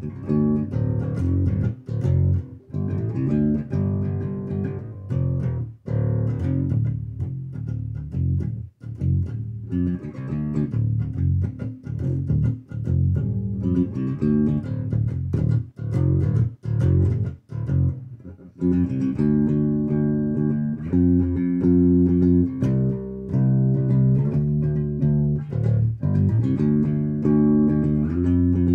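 Electric bass guitar playing a riff of plucked notes, broken by many short stops in the first part, with steadier held notes from about two-thirds of the way through.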